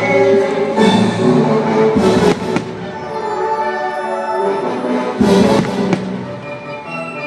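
Orchestral fireworks-show music playing, with firework bangs about two seconds in and again about five seconds in.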